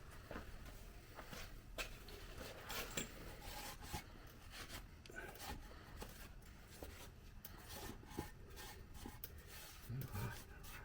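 Faint, irregular scraping and rubbing by hand with scattered light clicks, with a low knock near the end.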